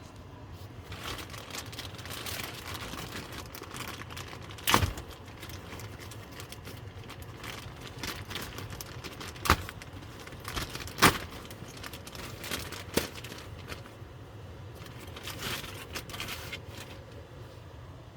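Packaging of a new activated carbon cabin air filter being torn open and handled, a rustling noise with four sharp snaps or knocks scattered through it.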